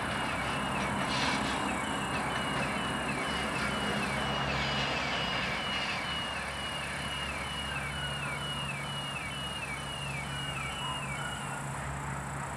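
ChME3 shunting diesel locomotive's six-cylinder engine running with a steady low drone as the locomotive rolls slowly along. Over it, a short high down-slurred chirp repeats about twice a second and stops about a second before the end.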